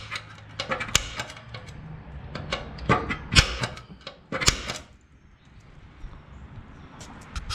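Irregular sharp clicks and taps of a pointed metal marking tool against the painted steel radiator support, marking where a bolt hole will be drilled. The loudest few come about three to four and a half seconds in, then it goes quieter with a couple of clicks near the end.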